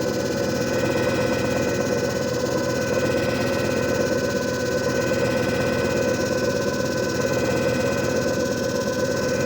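JFJ Easy Pro disc repair machine running: a steady motor hum with a constant whine.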